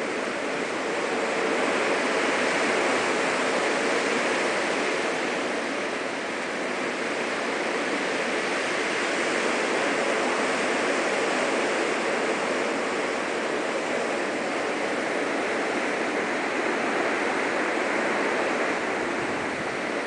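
Strong blizzard wind blowing steadily, a continuous rushing that swells and eases slightly in gusts.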